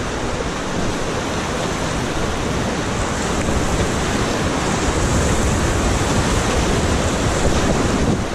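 Whitewater of a class III river rapid rushing and churning around a raft, a dense steady wash of water noise that grows a little louder from about three seconds in as the raft drops into the waves.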